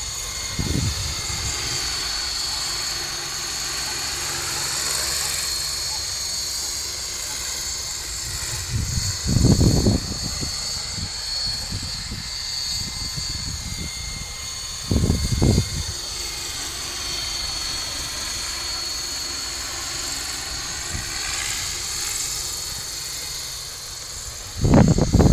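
Electric coaxial RC model helicopter in flight, with two contra-rotating three-blade rotors driven by a brushless motor: a steady high-pitched motor and rotor whine. Short low rumbles of wind on the microphone come about nine seconds in, around fifteen seconds in, and again at the end.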